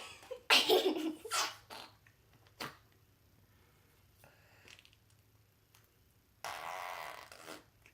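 Slime being squeezed and pressed to push out air, making fart-like squelching noises: a few short bursts in the first two seconds and a longer rough one near the end.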